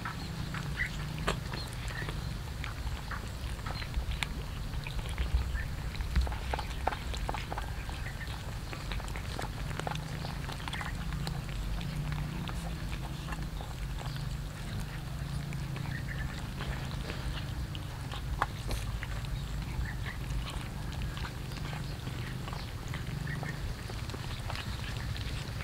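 A group of cats eating rice and fish from a metal tray: irregular small wet chewing and licking clicks over a low steady hum.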